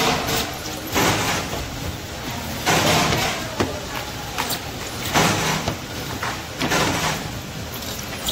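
Sole-cutting press in a slipper factory working: a clattering stroke about every second and a half, uneven, over a steady machine hum.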